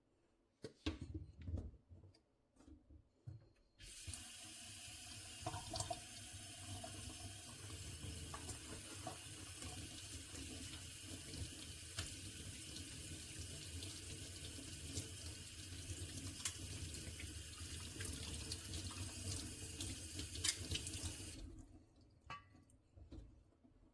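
A few handling knocks, then a tap turned on about four seconds in, water running steadily into a sink with small clicks and clatters of things moved under the stream, and the tap shut off a couple of seconds before the end, followed by a few more light knocks.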